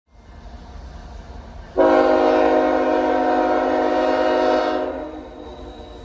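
Diesel freight locomotive's multi-tone air horn sounding one long, steady chord of about three seconds, starting abruptly about two seconds in, as a warning for the approaching grade crossing. A low rumble runs underneath.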